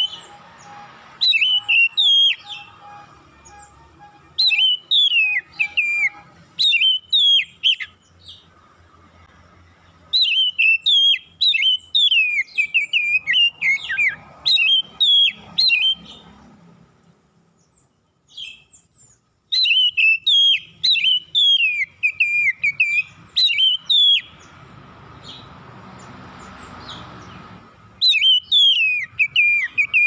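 Oriental magpie-robin singing in bouts of quick, clear whistled phrases, many sweeping downward in pitch, with pauses of a few seconds between bouts.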